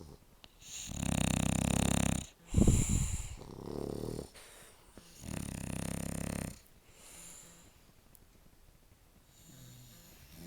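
A sleeping dog snoring: three loud snores about two seconds apart, then two fainter ones near the end.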